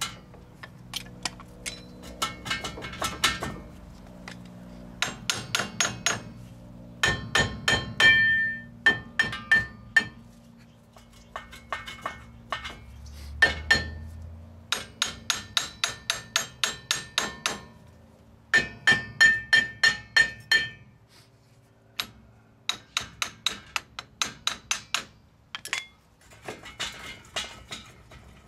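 Hammer blows on a truck's front wheel hub and rotor, driving the worn hub bearing assembly out of the steering knuckle. The strikes come in fast runs of several blows with short pauses between, each one clanging with a metallic ring.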